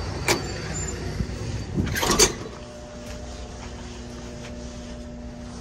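A building's entry door being opened and let shut: a click just after the start, then a cluster of latch and door clatters about two seconds in. After that the sound drops to a steady low hum.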